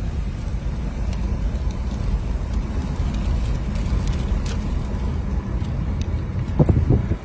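Low, steady rumble of a vehicle on the move, with a few faint clicks and a short cluster of knocks near the end.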